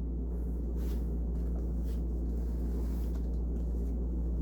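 Steady low hum with a faint hiss: background noise under a pause in talk, of the air-conditioner or electrical-hum kind.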